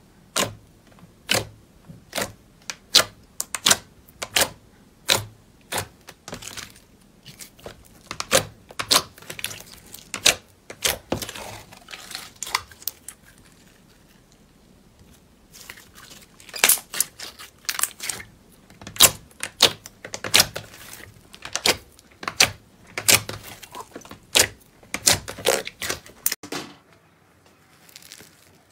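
Slime being worked and pressed, giving a run of sharp, irregular pops and crackles, with a pause of a couple of seconds about halfway and a stop near the end.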